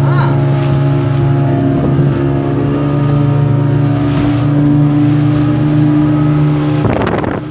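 Speedboat motor running steadily at speed with a constant low hum, over the rush of water and spray along the hull. Near the end there is a brief rough burst, then the engine sound drops in level.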